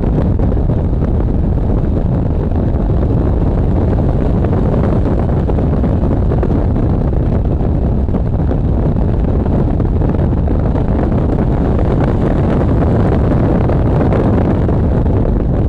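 Heavy, steady wind buffeting the microphone of a camera mounted outside on a car at track speed, with the car's engine and road noise mixed in underneath.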